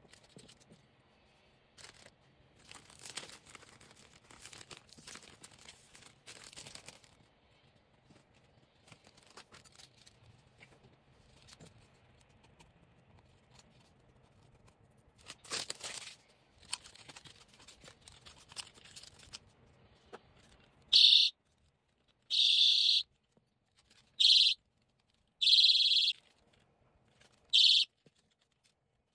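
Plastic packaging crinkling and tearing as it is handled. Then, about 21 seconds in, a personal safety alarm keychain shrieks in five loud, high-pitched bursts, some short blips and some lasting under a second, as it is switched on and off.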